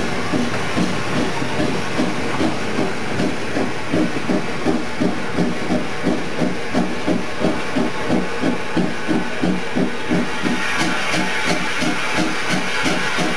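Steam locomotive working, its exhaust chuffing in an even beat of about three a second over a steady hiss of steam. About ten seconds in, a brighter high hiss joins.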